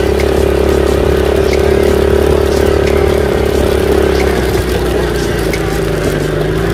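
ATV engine running steadily with an even drone.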